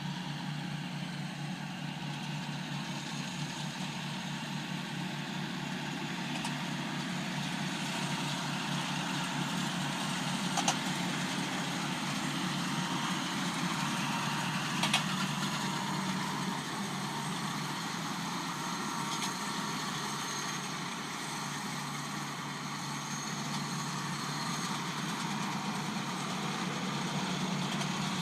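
Kubota M100X tractor's diesel engine running steadily while baling hay, with two sharp clicks about ten and fifteen seconds in.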